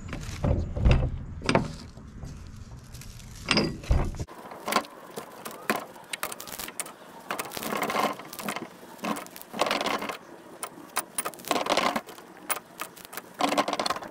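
Gloved hands rubbing and pressing dry seasoning onto a raw prime rib roast on an aluminum sheet pan: irregular soft rubbing, patting and crinkling sounds. A low rumble underlies the first four seconds and stops abruptly.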